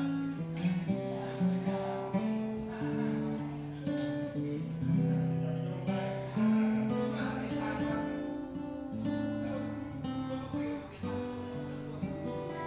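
Gibson J-45 acoustic guitar being played, plucked chords and single notes ringing out in a slow, changing progression.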